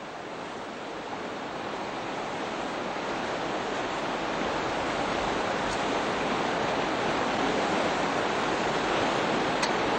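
Steady rush of fast-flowing river water, growing gradually louder.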